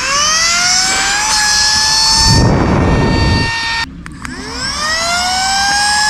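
FLEXTAIL mini electric air pump running on the valve of an inflatable pad: its motor whine rises in pitch as it spins up, then holds a steady high tone, with a rush of noise about halfway. It cuts out abruptly a little before four seconds in, then spins up again and settles to the same steady whine.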